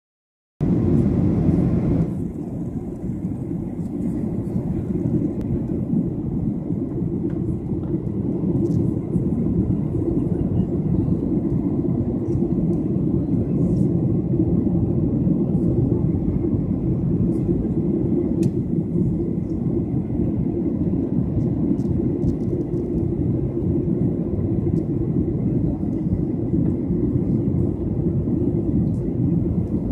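Steady cabin noise of a jet airliner in flight, heard inside the cabin: a dense low rumble of engines and airflow with a faint thin tone above it. It is slightly louder for the first second or two.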